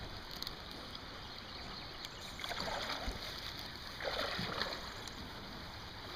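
Water sloshing and splashing around a person's legs as he wades in waders through a shallow creek, with two louder splashing surges, about two and a half and four seconds in.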